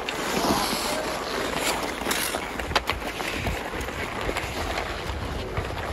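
Ice hockey play: skate blades scraping the ice and several sharp clicks of sticks on puck and ice, over a low wind rumble on the microphone.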